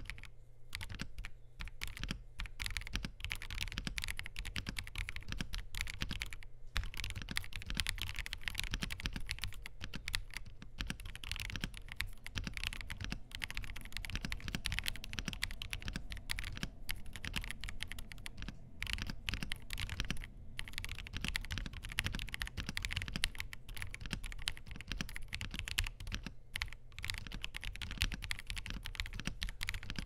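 Steady fast typing on a Hexgears M3 mechanical keyboard with Kailh fence linear switches, PBT XDA keycaps, a polycarbonate plate and gasket mounting. The keystrokes come as a dense run of clacks broken by a few brief pauses.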